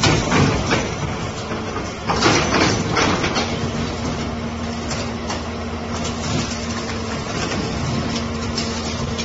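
Diesel engine of a Hyundai crawler excavator running under load while its hydraulic scrap shear crushes and cuts through scrapped car bodies, with metal crunching and clanking over the engine, a loud crunch about two seconds in, and a steady hum joining about a second later.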